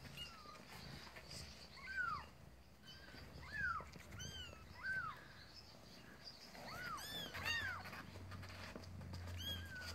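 Young kittens mewing: short, high-pitched cries that rise and fall, one every second or two, with several overlapping about seven seconds in.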